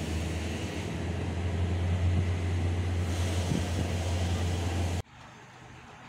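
Vehicle engine running with wind rushing over the microphone: a steady low hum under a loud hiss. It cuts off suddenly near the end, leaving a much quieter hum.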